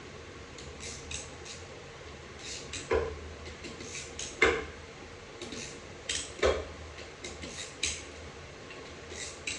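Hand ratchet clicking in short runs of a few clicks as the oil-pump bolts of a BMW 8HP45X automatic transmission are loosened by hand. Three louder metal knocks come about three, four and a half and six and a half seconds in.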